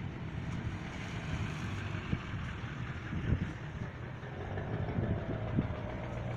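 Steady low hum of an idling vehicle engine, with a few faint knocks.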